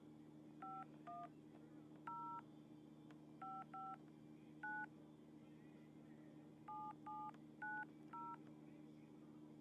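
Touch-tone phone keypad dialing a number: ten short two-tone beeps in uneven groups, with a pause of about two seconds before the last four, over a faint steady low hum.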